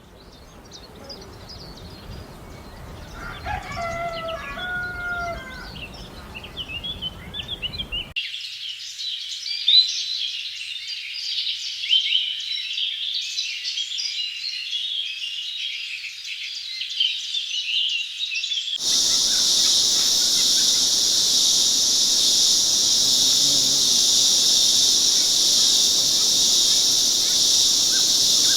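Three soundscapes in turn. First, scattered birdsong with a rooster crowing once, about three to five seconds in. From about eight seconds, a dense chorus of high woodland birdsong chirps, and from about nineteen seconds, a steady, high, shrill insect drone typical of a rainforest.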